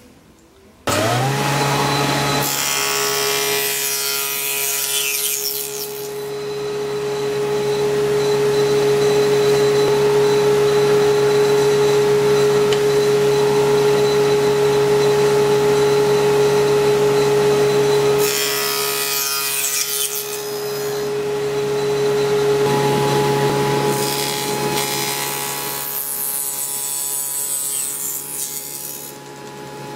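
Table saw starting up about a second in, winding up to speed and then running with a steady hum. The blade cuts 45-degree miters in wooden frame rails pushed through on a miter gauge, and the sound swells and changes as each piece is fed through.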